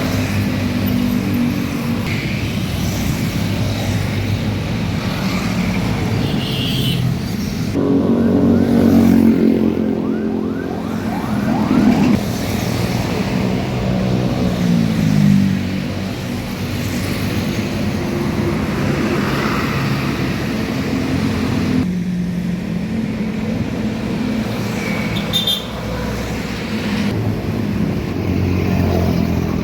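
Road traffic and a passing bus's engine, with a bus's multi-tone 'telolet' horn playing a stepping tune from about eight to fifteen seconds in.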